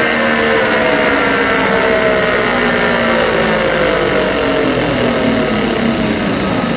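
Acura NSX's twin-turbo V6 engine running and slowly winding down, its pitch falling steadily.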